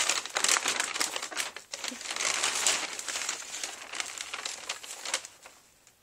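Gift wrapping crinkling and rustling as it is handled, in quick irregular crackles, stopping about five seconds in.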